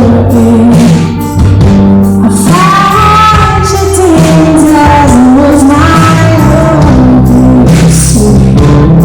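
Live rock band playing with a lead vocalist singing over bass, guitar and drums.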